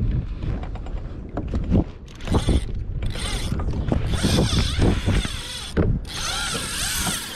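Wind and water noise against the kayak. Then, from about three seconds in, a spinning reel's drag buzzes in several runs as line is pulled off: a fish has taken the live bait and is running.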